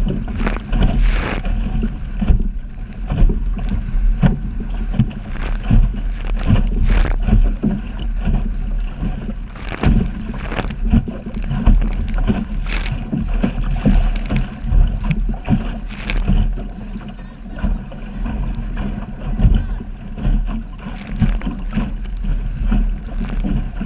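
Optimist dinghy's hull slapping into chop, with irregular splashes of water every second or so. A steady low rumble of wind on the microphone runs underneath.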